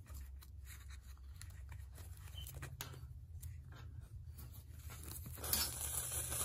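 Beeswaxed thread drawn through a sewing hole in a paper page, a rasping hiss of about a second beginning some five seconds in, the wax making the thread catch and drag. Before it, faint small clicks and rustles of paper and needle being handled.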